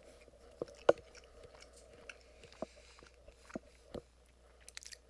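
A person chewing a bite of bread with hot sauce, close to a headset microphone: irregular wet mouth clicks and smacks, the loudest about a second in and a quick run of them near the end.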